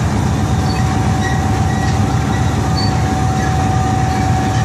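RGE-20 diesel locomotive's engine running steadily at low revs with a deep rumble, while one steady high-pitched whine sounds over it.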